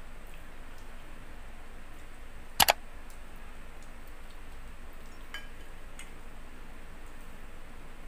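A sharp mouse-click sound effect, heard as a quick double click, about two and a half seconds in, from a subscribe-button overlay animation. A couple of faint ticks follow a few seconds later.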